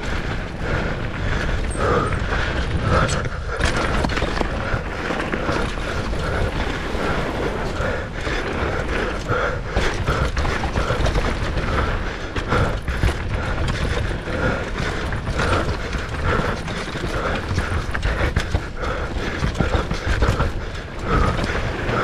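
Mountain bike ridden down a dirt trail: continuous rattling and clatter from the bike over rough ground, over a low rumble.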